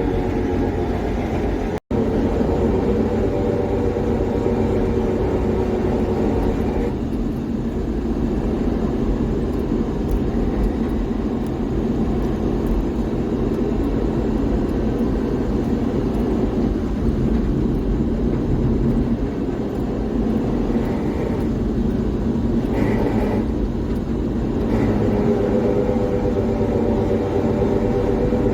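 Suzuki Carry DA63T kei truck's 660 cc three-cylinder engine and drivetrain running loud and steady, with a whining tone that is strongest near the start and end and eases off in the middle. The owner blames the truck's loud abnormal noises on a failing five-speed manual transmission. The sound cuts out for an instant about two seconds in.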